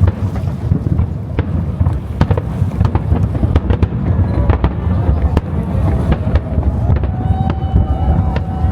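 Aerial firework shells bursting in quick succession: deep, continuous booming with many sharp cracks. Near the end a thin whistle-like tone rises above it.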